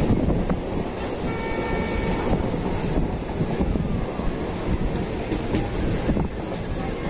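Train running at speed, heard from inside a carriage beside the window: a steady rumble of wheels on the rails. A faint horn tone sounds briefly just over a second in.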